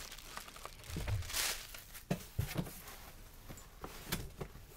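Soft rustling and crinkling as a short wig is pulled on over a wig cap and adjusted by hand, with a few light clicks and taps and one brief louder rustle about a second and a half in.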